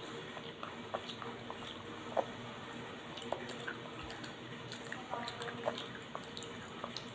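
Scattered faint clicks and crackles of garlic peanuts being picked by hand from a plastic tub and chewed, over a low steady hum.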